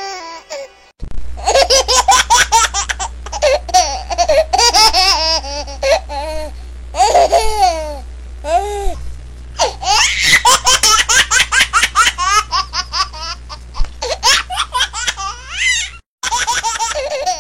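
Long, hearty laughter in rapid high-pitched bursts, breaking off suddenly near the end.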